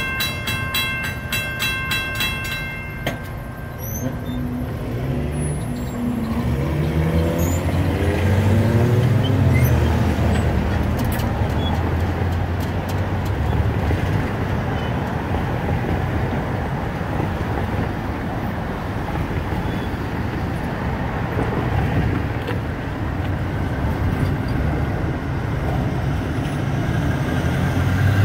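Railroad grade-crossing bell ringing rapidly, cutting off about three seconds in as the train clears the crossing. Road vehicles then pull away over the crossing, their engines rising in pitch, and give way to steady traffic noise.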